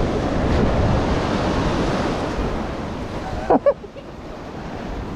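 Ocean surf washing against a rocky shore, with wind buffeting the microphone; the wash is heavier for the first few seconds and then eases. About three and a half seconds in, two short voice-like sounds cut through it.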